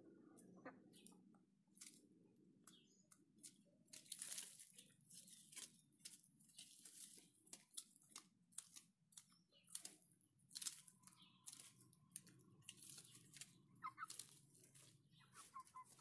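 Faint, irregular crackling and rustling of dry leaf litter and mulch, as footsteps move through it. A faint steady tone holds for about three seconds past the middle.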